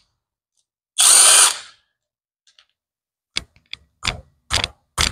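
Power drill running on bolts on the engine: one longer burst about a second in, then a string of short trigger pulses about twice a second from about three and a half seconds in.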